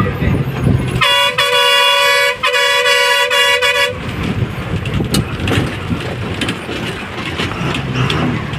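A vehicle horn sounds two long blasts back to back starting about a second in, about three seconds together, over the running noise of a bus on the road heard from inside the cabin.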